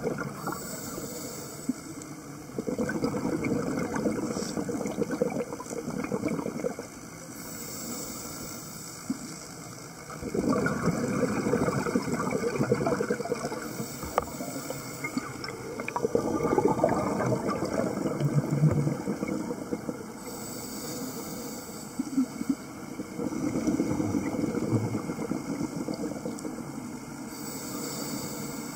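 Scuba diver breathing through a regulator underwater: a short hiss on each inhale, then a longer gurgle of exhaled bubbles, repeating about every six to seven seconds for four breaths.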